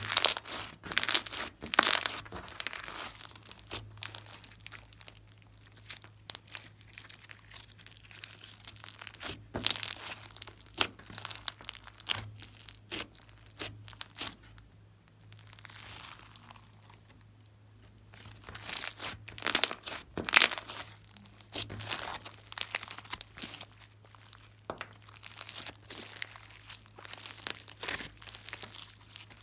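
Glossy slime being squished and stretched by hand, giving bursts of sticky crackling and popping clicks, loudest near the start and about twenty seconds in.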